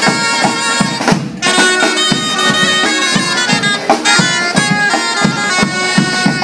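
Two or three dulzainas (Castilian double-reed shawms) playing a loud, reedy melody together over steady drum beats from a snare and a larger drum. The melody breaks off briefly about a second in.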